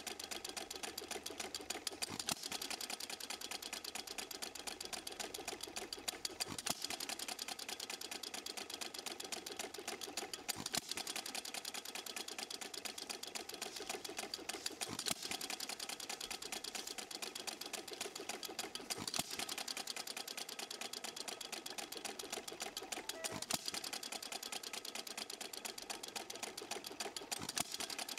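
Stuart Little Major hit-and-miss engine running: a fast, light mechanical clatter throughout, with a sharper, louder bang about every four seconds as it fires and then coasts between firings.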